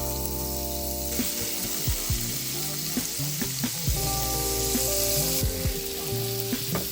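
Minced garlic sizzling in melted butter in a hot skillet, with a few light clicks, over steady background music.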